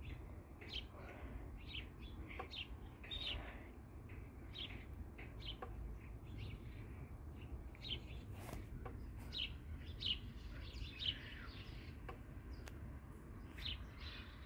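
Small birds chirping in short, irregular calls over a steady low rumble.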